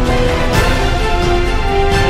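Loud theme music with held notes and a few percussive hits.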